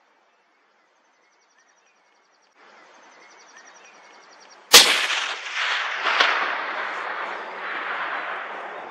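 A single hunting rifle shot about halfway through, followed by its echo rolling back off the hillsides for several seconds, with a sharper crack about a second and a half after the shot.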